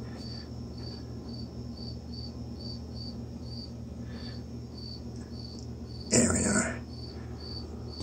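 A cricket chirping steadily at about three chirps a second over a steady low hum. There is a brief louder noise about six seconds in.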